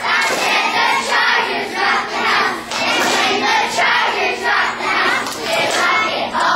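A group of young girls chanting a cheer in unison, their voices coming in short, even beats of a steady rhythm.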